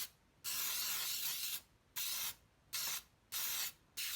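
Aerosol can of non-stick baking spray hissing in repeated bursts as it coats the cavities of a miniature Bundt pan: one spray of about a second, then four shorter ones.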